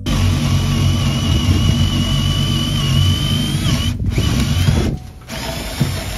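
Cordless drill running under load as it bores into the OSB-clad timber wall: a steady whine for nearly four seconds, a brief stop, then two more short runs with a pause between.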